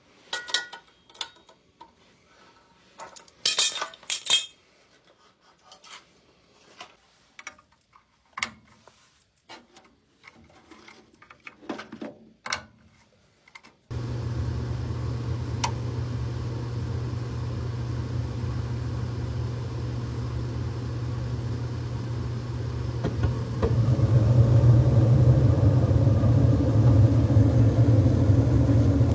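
Clicks and clinks of tools and metal parts being handled on a gas furnace. About halfway through, a steady furnace hum starts abruptly. About ten seconds later it grows louder with a low rumble, as of the burners lighting and firing.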